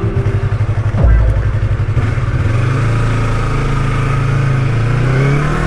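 Motorcycle engine idling with a pulsing beat, then about a second in it opens up and pulls away, its pitch climbing as it accelerates and shifting again near the end.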